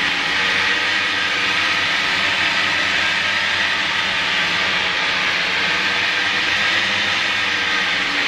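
Pedal-powered blender running steadily: a bicycle drive wheel spins the blender base by friction and the blades churn fruit into a smoothie. It is a loud, even whirring with a steady hum underneath.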